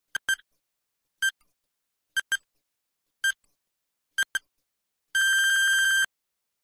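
Quiz countdown-timer sound effect: short electronic ticks about once a second, some of them doubled, then a steady electronic ringing tone of about a second that marks time up as the answer is shown.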